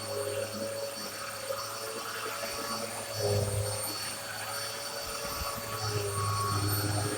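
Black and Decker BDXURV309 bagless upright vacuum cleaner running over a rug, a steady drone with a low hum that swells about three seconds in and again near the end.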